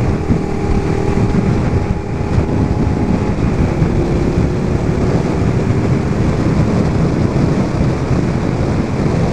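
Steady wind rumble on a helmet-mounted microphone at road speed, over the even note of a motorcycle engine cruising, its pitch drifting up slightly near the middle.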